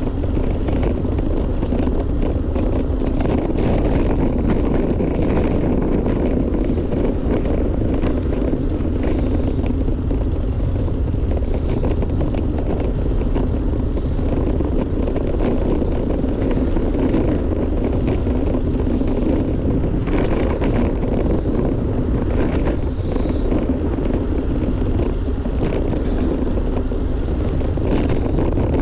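Steady wind rushing over a GoPro action camera's microphone while riding a road bike at speed, a constant low rumble with a few faint knocks from the road.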